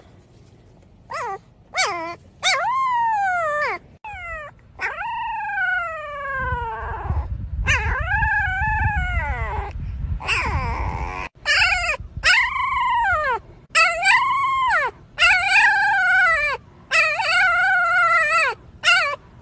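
Very young puppies howling: about a dozen thin, high calls, the early ones sliding down in pitch, the later ones rising and falling. A low wind rumble on the microphone comes in briefly in the middle.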